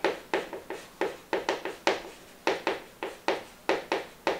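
Chalk writing on a chalkboard: a quick run of sharp chalk taps and strokes, about four a second.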